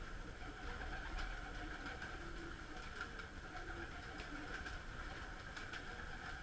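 Domestic pigeons feeding and flying in a loft: scattered sharp clicks of beaks pecking grain at a feeder and flutters of wings, over a steady hum.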